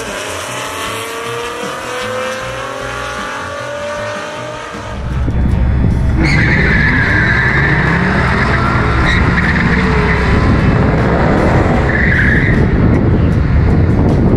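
Drag car accelerating hard down the strip, its engine rising in pitch. About five seconds in, a loud close engine rumble at the starting line takes over, with tires squealing several times.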